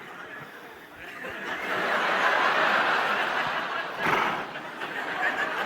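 Audience laughing. The laughter builds about a second in, holds, and swells again near four seconds before easing off.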